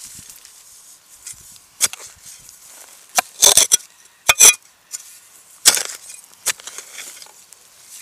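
Digging shovel stabbing and scraping into plowed soil and corn stalk stubble. About eight sharp strikes and scrapes, several in quick succession around the middle.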